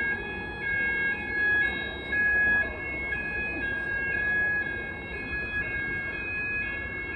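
Building fire alarm sounders sounding continuously: a steady tone under a higher two-tone note that alternates about once a second.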